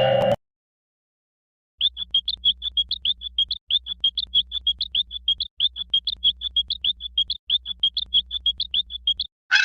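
Old cartoon sound effect: a fast run of short high chirps, about seven a second, in four stretches with brief breaks between them, over a faint low hum. It starts after a pause of over a second and stops shortly before the end.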